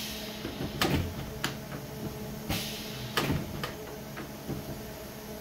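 Pneumatic pop-up skeleton prop cycling: a two-way air cylinder drives its metal scissor mechanism, giving a series of sharp knocks and clacks as the frame shoots up and drops back.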